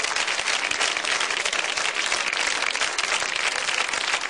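Studio audience applauding: dense, steady clapping from many hands.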